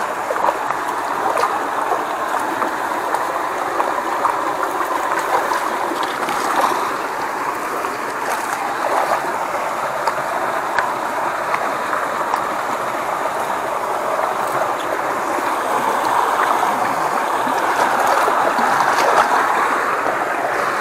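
Steady rushing and gurgling of a small, shallow stream of muddy water flowing along an earth bank, with a few faint small splashes or knocks.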